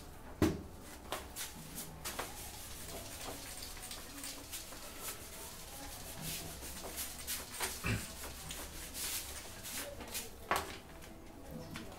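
Whiteboard being wiped clean by hand, a run of short rubbing strokes across the board, with a dull knock about half a second in and another near eight seconds.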